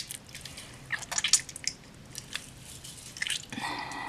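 Runny purple glue that failed to set into slime, squelching and crackling in hands in short irregular bursts. A brief pitched sound comes near the end.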